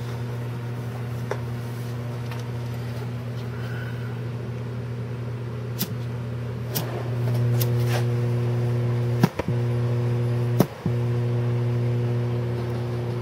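Steady low electrical hum from the speakers, driven by the solar panel through a small amplifier: flickering light picked up by the panel. Two sharp clicks come a second apart, a lighter being struck. The hum then grows louder and cuts out briefly twice.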